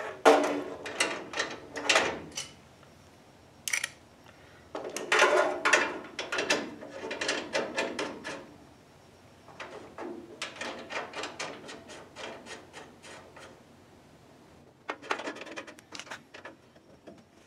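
Aluminum air-conditioning tubes being handled and worked into a hole in a sheet-metal radiator support beside the condenser: several bouts of rubbing, scraping and clicking of metal on metal, with short pauses between.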